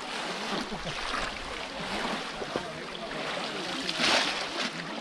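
Shallow muddy pond water splashing and sloshing as people wade through it and work bamboo fish traps, with a louder burst of splashing about four seconds in. Faint voices in the background.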